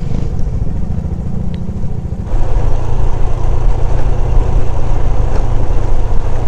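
Motorcycle engine running while riding, with road and wind noise on the bike-mounted camera's microphone. It becomes louder and fuller a little over two seconds in.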